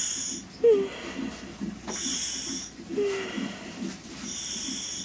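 Entonox (gas and air) demand valve hissing each time a labouring woman inhales through the mouthpiece: three drawn breaths, each under a second, about two seconds apart. Between them come her low breathing and a short falling voice sound about a second in.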